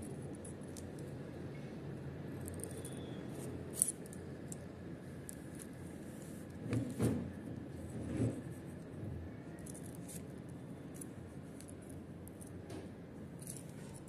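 Scissors cutting a magnet into a small piece: scattered small snips and clicks, with a few soft knocks near the middle.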